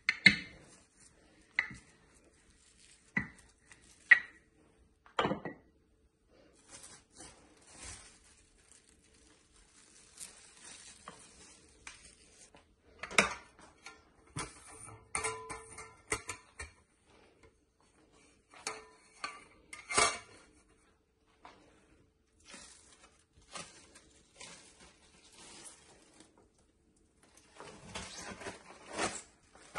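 Intermittent sharp knocks and clatters of a wooden rolling pin and a metal tart pan being handled on a kitchen counter, with rustling of plastic wrap over rolled-out dough in between. Four sharp knocks come in the first few seconds, and a longer run of rustling and clatter comes near the end.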